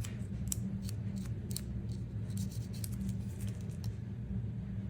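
Small brush scrubbing inside an AirPods charging case: irregular dry clicks and scratches of bristles on plastic, over a steady low hum.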